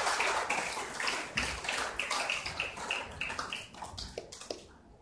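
Audience applauding, dense at first, then thinning to scattered single claps before stopping near the end.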